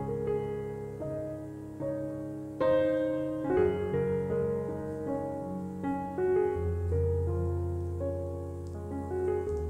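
Background piano music, notes and chords sounding one after another and ringing on.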